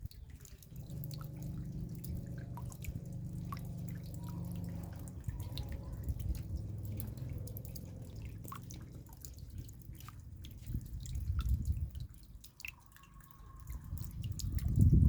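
Raindrops dripping, heard as irregular scattered ticks, over a low rumble that carries a steady low hum through the first half and swells near the end.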